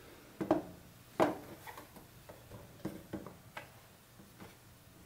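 Light clicks and knocks of the plastic walls of a model building kit being handled and set down on its base plate on a cutting mat. Two sharper knocks about half a second and a second in, then a scatter of lighter taps.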